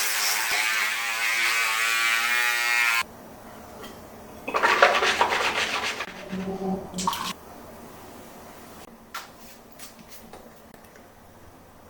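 Bathroom tap water running for about three seconds with a steadily rising tone, then cut off abruptly. A louder rush of sound follows about a second later, and a few faint clicks come near the end.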